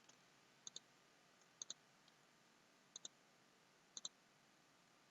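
Computer mouse double-clicked four times, about a second apart, each a pair of sharp clicks over near silence.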